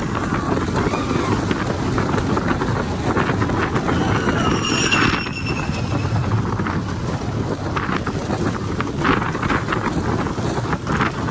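Wind buffeting the microphone over the rumble of the Slinky Dog Dash roller coaster train running along its steel track. A faint high wavering squeal comes about four to five seconds in, and more clattering follows in the last few seconds.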